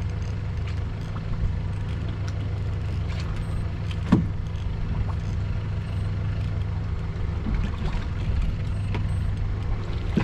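Boat engine idling with a steady low hum, with light clicks and one louder thump about four seconds in.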